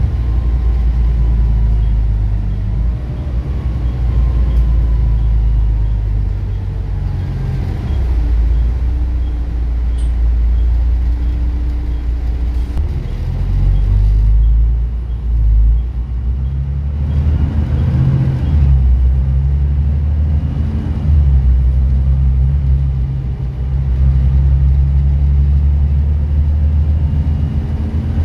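Volvo B9TL double-decker bus's rear-mounted six-cylinder diesel engine heard from inside the lower deck while the bus is under way: a low, steady rumble whose pitch steps up and down several times as the bus pulls along.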